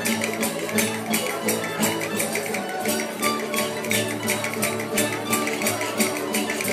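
A rondalla, a folk string ensemble of Spanish lutes (laúdes) and guitars, playing a lively dance tune together. The strings are strummed in a steady quick beat of about four to five strokes a second.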